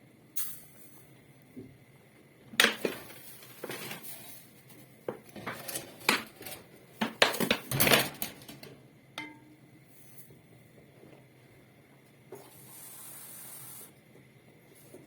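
Kitchen pots and utensils clattering and knocking in a run of sharp clinks, followed near the end by a short steady hiss like pouring.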